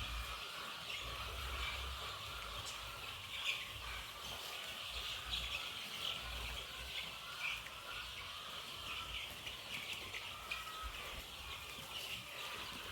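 A flock of three-week-old chicks peeping together in a dense, continuous chorus of short high chirps, with an uneven low rumble underneath.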